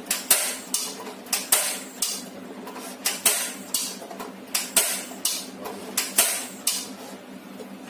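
Portable gas stove's igniter knob being turned over and over, a quick run of sharp clicks about two or three a second that stops near the end: repeated tries to light a burner that is slow to catch.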